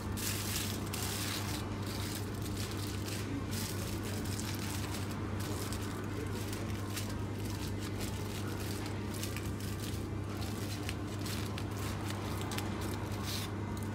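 Aluminium foil crinkling and rustling in irregular little crackles as hands fold it around a filled baked potato, over a steady low hum.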